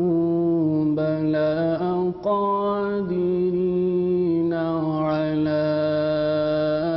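A man reciting the Quran in slow, melodic Arabic chant (tarteel), holding long sustained notes. He pauses briefly for breath about two seconds in.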